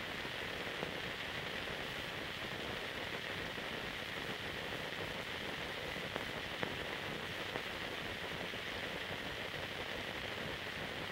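Steady hiss of an old silent film's soundless transfer, with a few faint clicks and crackles.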